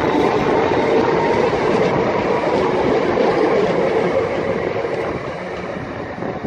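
Class 319 electric multiple unit pulling away from the platform, its running noise on the rails slowly fading as it draws off.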